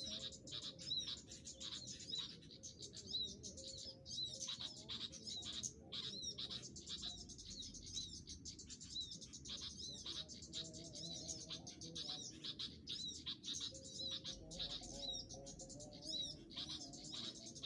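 Small birds chirping in quick, repeated short notes, many calls overlapping, with faint background music.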